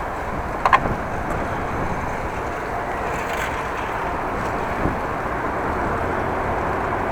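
Steady rush of wind on the microphone and road and traffic noise while riding a bicycle, with a short sharp click a little under a second in.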